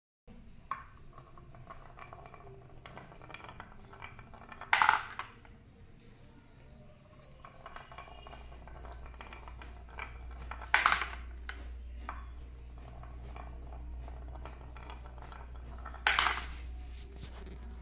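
A marble rolling through a wavy groove carved in a wooden board, rattling against the curved wooden walls with many light clicks, with three louder clacks about six seconds apart.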